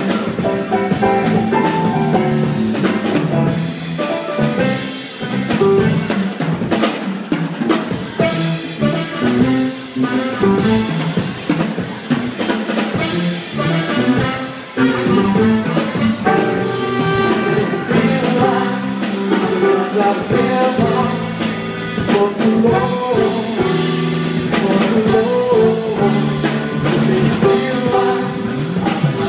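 Live swing band playing a swing arrangement, with saxophones and keyboard over a steady beat.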